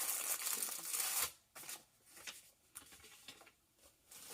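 Rustling and crinkling of packaging and rolled vinyl sheets being handled and pulled out, loudest for about the first second, then a few soft scattered rustles.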